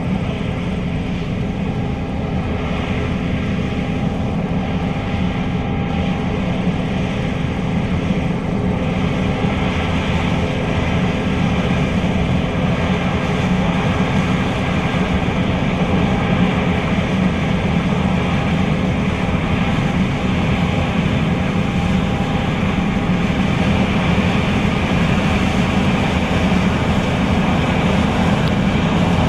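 John Deere S660 combine running steadily as it harvests soybeans: an even, low machine drone with an engine hum, slowly growing a little louder.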